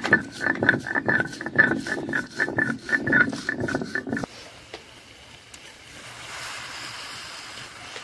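Coriander leaves being ground on a sil-batta, the stone roller worked back and forth over the flat grinding stone in quick, even grinding strokes. The grinding stops abruptly about four seconds in, leaving a fainter steady hiss.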